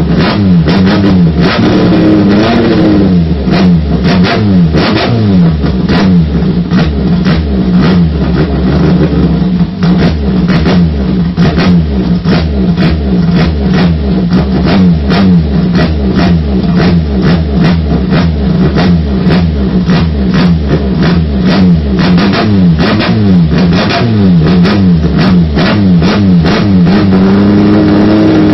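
Toyota 5K four-cylinder engine of a longtail racing boat being revved hard in repeated blips, its pitch swinging up and down, with many sharp cracks through the running. Near the end it holds at a steadier, higher pitch.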